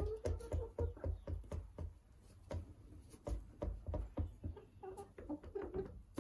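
Hens pecking at rubber boots: quick, irregular taps and knocks, with soft low clucking in the first second and again near the end.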